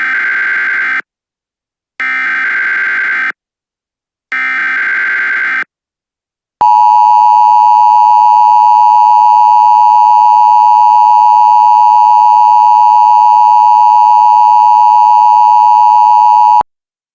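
Emergency Alert System SAME header: three short bursts of buzzing data tones, each about a second long, then the two-tone EAS attention signal held steady for about ten seconds before it cuts off abruptly. The sequence signals that an emergency broadcast message follows.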